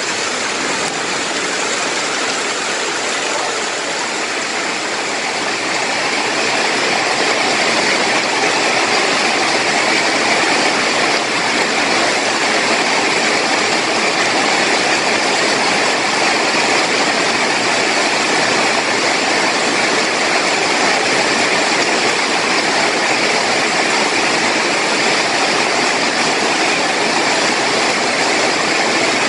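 Heavy rain falling steadily on leaves and standing water, a loud even hiss that grows a little louder about five seconds in.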